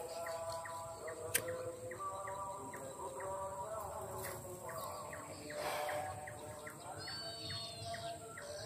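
Hand-held green pigeon (punai) lure call blown by mouth, giving a run of whistled, pigeon-like notes. A short high chirp sounds about seven seconds in.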